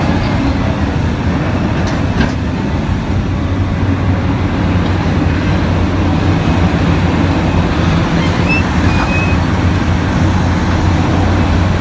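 Heavy mining machinery's diesel engines running steadily with a deep drone, from a large hydraulic excavator loading dump trucks. A couple of faint knocks come about two seconds in, and a few short high chirps come past the middle.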